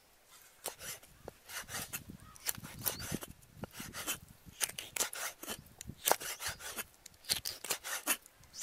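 Cleaver chopping a raw eel into chunks on a wooden chopping block: a run of sharp, irregular knocks, about three a second, starting about a second in.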